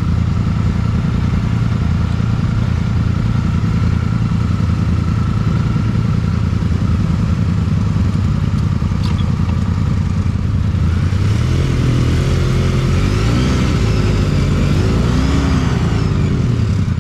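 Polaris Sportsman ATV engine running steadily, then revved up and down several times from about two-thirds of the way in. It is a machine that keeps stalling, which the owner puts down to a carburetor problem.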